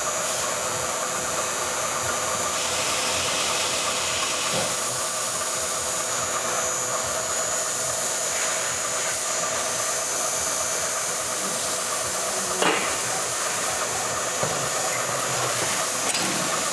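Injection molding machine running through a molding cycle: a steady machine hum and hiss with a few constant tones, and one short sharp knock about two-thirds of the way through.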